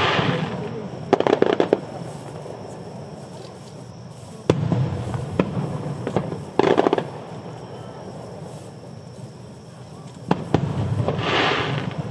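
Aerial firework shells going off in a display, one after another. Three times a sharp boom with a low rumble trailing it is followed about two seconds later by a short burst of rapid crackling.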